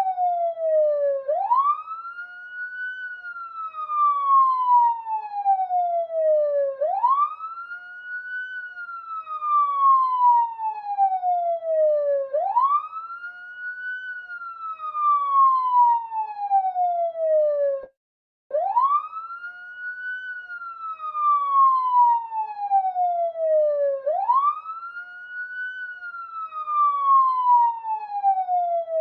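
Police siren wailing. Each cycle rises sharply in pitch in about a second, then falls slowly over about four seconds, repeating about five times. It cuts out for half a second partway through.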